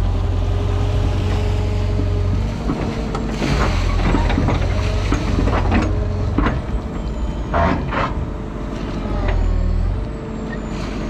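Digger's diesel engine and hydraulics running steadily as the boom lifts and moves the bucket, with a series of knocks and clanks between about three and eight seconds in.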